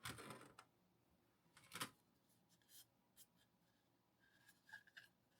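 A few faint, short rubbing and scraping sounds of plastic parts being handled, a 3D-printed insert and a clear plastic food container, heard about four times with long quiet gaps between them.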